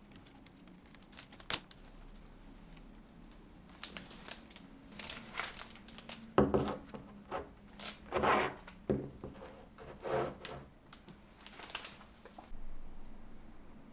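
Crinkling and rustling handling sounds, with a few sharp clicks, in a series of short bursts starting about four seconds in and stopping near the end.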